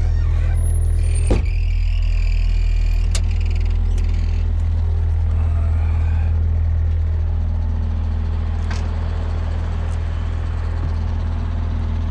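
Vehicle engine and road noise droning steadily from inside the cab while driving, with a few light clicks.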